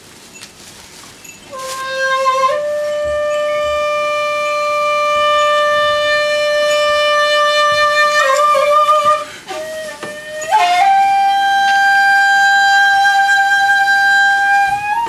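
Shakuhachi (end-blown bamboo flute) playing slow, long held notes. A low note enters about one and a half seconds in, slides up slightly and is held for several seconds; after a brief wavering passage, a higher note is held to the end.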